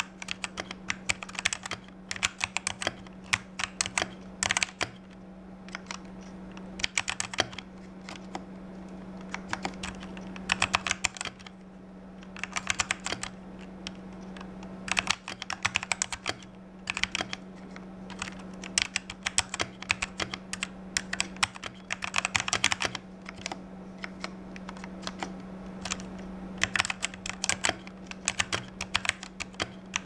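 Typing on an E-Yooso Z11t one-handed mechanical keypad with stock Huano Red linear switches. Runs of rapid keystrokes are broken by short pauses, with a steady low hum underneath.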